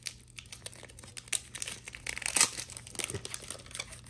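Foil Pokémon card booster pack wrapper crinkling and tearing as it is opened by hand, in irregular crackles with the loudest about two and a half seconds in.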